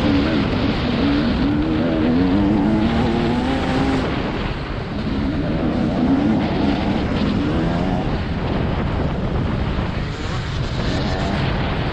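TM 300 motocross bike's engine revving up and down as the rider accelerates and shuts off through the bends of a dirt track; the engine note drops about four seconds in and climbs again soon after.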